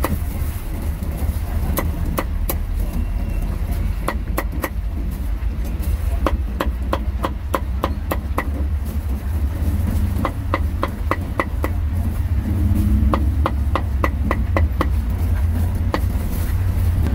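Steel cleaver chopping roast pork on a chopping board: runs of quick sharp strikes, about three to four a second, with short pauses between runs, over a steady low background rumble.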